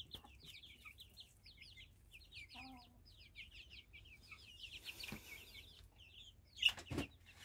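Young local-breed chickens peeping in a steady stream of short, high, falling chirps, with one lower cluck about two and a half seconds in and a brief louder sound near the end.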